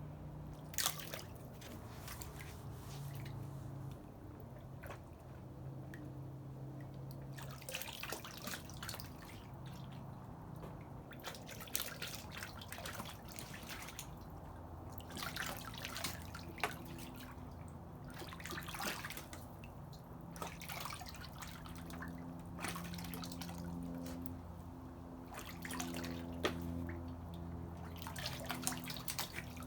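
Water dripping and splashing lightly in many small, irregular splashes, over a low steady hum.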